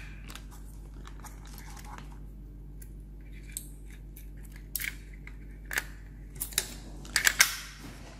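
Small plastic clicks and rattles as an AA battery is fitted into the slim Logitech MK470 wireless mouse and its magnetic battery cover is put back. The sharpest, loudest clicks come in a quick cluster about seven seconds in.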